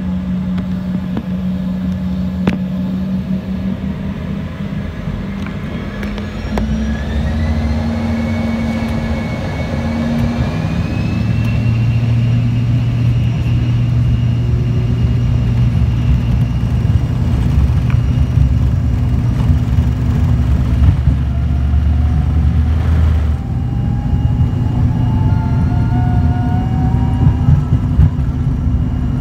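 Jet airliner engines spooling up: a whine rises in pitch about six seconds in and levels off, while a low rumble grows louder and then holds steady as the aircraft rolls.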